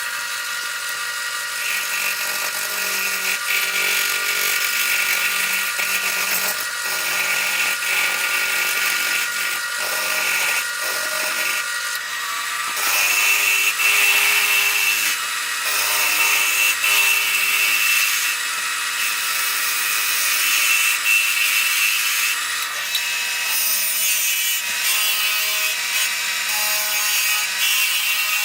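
Wood lathe running with a steady motor whine while a turning tool cuts into a spinning Northern Catalpa blank, a scratchy shaving sound over the hum that changes pitch and loudness as the cut goes on.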